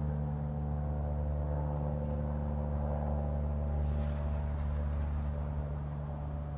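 Low, steady droning hum of an aircraft flying over, holding several even tones with no rise or fall in level.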